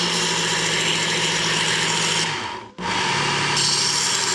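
Work Sharp belt sander running, its abrasive belt (about 100 grit) grinding down a steel Leatherman plier part, with a steady motor hum under the grinding. It cuts out briefly about two and a half seconds in, then starts again a moment later.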